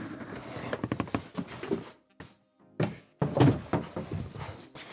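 A plastic-bagged monitor panel being handled and set down on a wooden table: a string of thunks and knocks with handling noise, cutting abruptly to silence twice, over background music.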